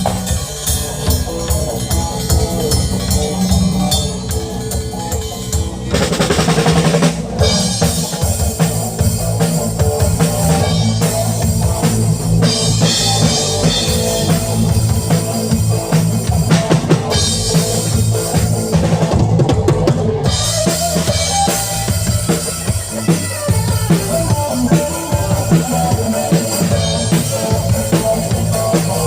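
Drum kit played with bass drum, snare and rim shots over continuous music with sustained low notes, at a stage sound check.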